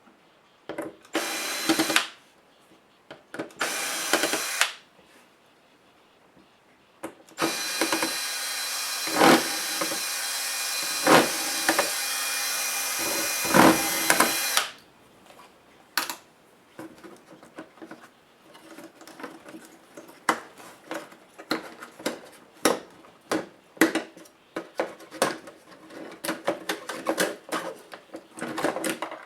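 Cordless electric screwdriver backing screws out of a laptop case: two short runs, then one steady run of about seven seconds with a motor whine. After that come many small clicks and taps of plastic parts and screws being handled.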